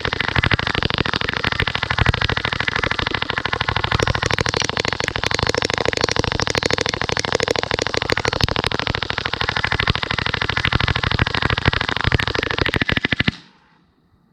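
Full-auto HPA-powered steel BB gun firing one long unbroken burst of rapid shots, which cuts off suddenly near the end.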